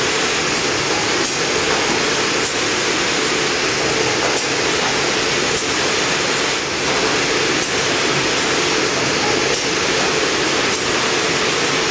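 Fidia Vampa Trevi paper shopping-bag machine running in production: a steady mechanical noise with faint ticks about once a second.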